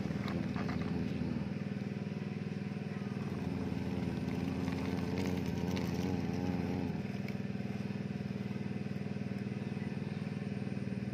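A motor or engine running steadily with an even hum. For a few seconds in the middle, from about three and a half to seven seconds in, a wavering higher tone rides over it.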